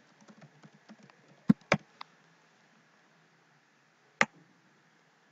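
Computer keyboard typing: a quick run of light key taps, then two sharper, louder keystrokes about a second and a half in, and a single click a little after four seconds in.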